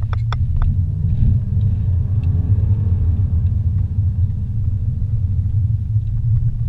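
Car driving on a paved highway, heard from inside the cabin: a loud, steady low rumble of engine and road noise, with a few faint clicks near the start.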